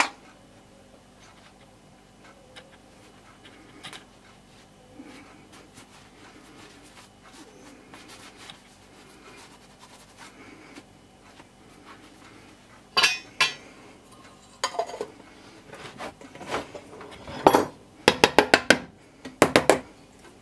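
Small handling sounds at first, then metal clinks and knocks from about thirteen seconds in, ending in a quick run of sharp taps: hand tools and a metal tin of surface filler being handled and set down on a wooden workbench.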